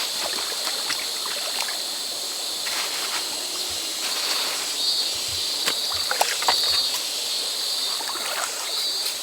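River water running and splashing steadily, with a high-pitched buzz that swells and fades several times and scattered sharp clicks.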